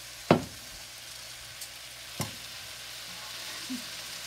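Wok sizzling steadily as freshly added soaked basmati rice and vegetables fry, with two sharp knocks of a metal spoon against the wok, the louder about a third of a second in and a second one about two seconds in.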